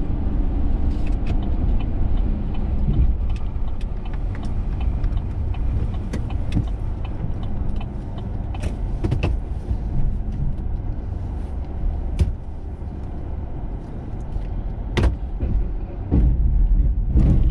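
Plow truck's engine running steadily with a low rumble, with a few sharp knocks in the second half.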